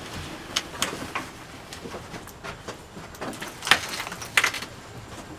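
Broken glass crunching and cracking: a scatter of sharp, irregular cracks and clinks, the loudest a little before four seconds in and again about half a second later.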